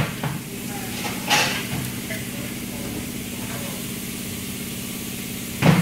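A steady low hum runs under a few brief knocks and rustles as the battery cable's ring terminal is handled onto the alternator's output stud, with one sharper knock near the end.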